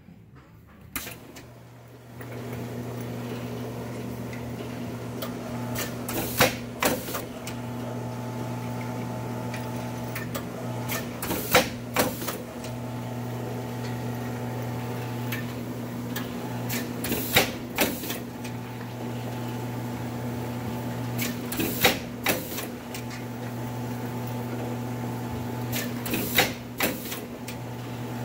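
Shanklin A26A automatic shrink-film L-sealer running: a steady motor hum starts about two seconds in. A cluster of sharp mechanical clacks comes about every five seconds, one machine cycle for each small product wrapped and sealed.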